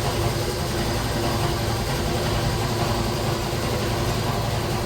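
An electric motor running with a steady low hum and an even mechanical drone.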